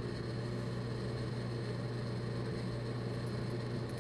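A steady low hum over an even hiss, unchanging throughout.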